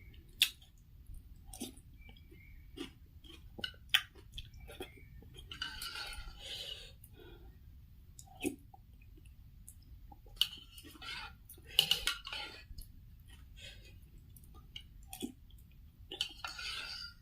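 A person eating pork noodle soup close to the microphone: chewing and noisy mouthfuls about a second long, with sharp clinks of cutlery against the bowl every few seconds.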